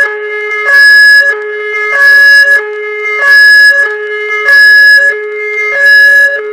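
Synthesized emergency alert alarm tone: a loud, buzzy tone alternating with a softer, lower tone, repeating about every 1.25 seconds, with five loud blasts in all.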